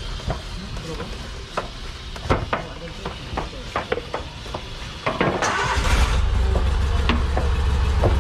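Scattered clicks and knocks, then about five seconds in an engine starts with a short hiss and settles into a steady, deep idle.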